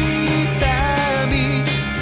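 Rock music: a full band with a steady low end and a held melody line that bends in pitch.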